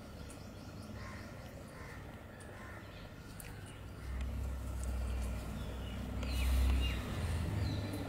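Outdoor ambience: faint chirps of small birds in the background, and a low rumble that swells from about halfway and fades near the end. A short harsh, raspy call sounds about three-quarters of the way in.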